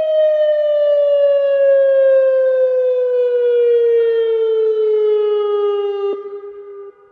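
Federal Signal Modulator 8032B electronic tornado siren sounding one loud, slowly falling tone. About six seconds in a click cuts off the brightest part of the sound, and a fainter low tone carries on as the level drops near the end.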